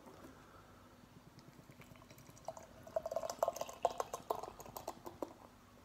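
Beer pouring from a can into a glass, starting about halfway in.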